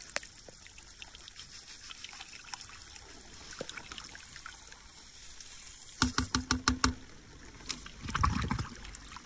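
Pool water trickling steadily. About six seconds in comes a quick run of about seven sharp taps, and near the end a louder, brief rush of splashing water.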